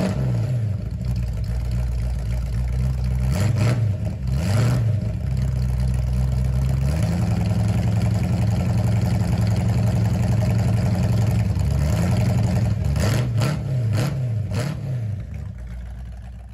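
Car engine idling with a steady low rumble, revved up and back down a few times: once at the start, twice about four seconds in, and three times in quick succession near the end, then fading out.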